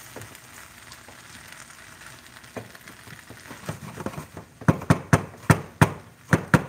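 A shrimp, saltfish and vegetable stir-fry sizzling in a nonstick frying pan. From about four and a half seconds in, the silicone spatula knocks against the pan about seven times in quick succession as the food is stirred vigorously.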